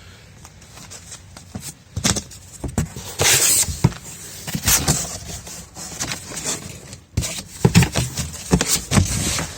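A large cardboard box being opened by hand: irregular tearing, scraping and knocking of cardboard and packing. It starts about two seconds in, with a longer tearing stretch soon after.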